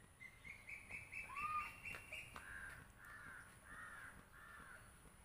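A crow cawing faintly, a string of short calls with four in quick succession about half a second apart in the second half.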